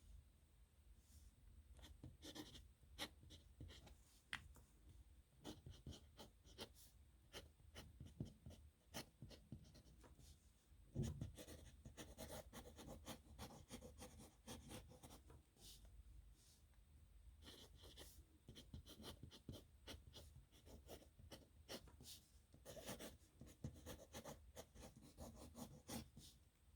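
Faint scratching of a pen on paper, in quick strokes and small taps as signatures are written by hand, with one soft knock about eleven seconds in.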